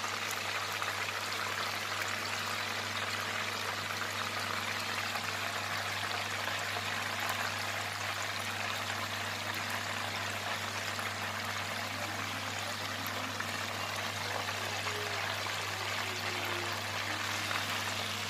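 A whole marinated chicken deep-frying in oil in a pan, making a steady sizzling and bubbling over a low flame. A steady low hum runs underneath.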